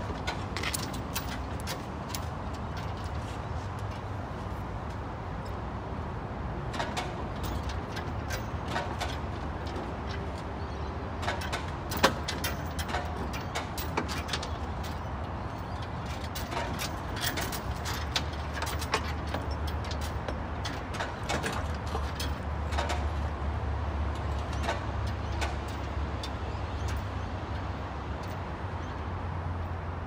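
A Thomas 103 skid steer being hoisted on lifting chains: the chains clink and the machine's steel body knocks, over the steady low drone of an engine. One sharp clank comes about twelve seconds in, and the drone grows louder in the second half.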